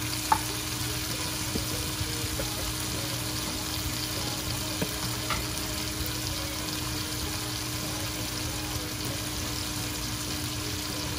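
Hot oil sizzling steadily in a wok around fried onions, onion paste, chopped tomato and cilantro, with a few small pops.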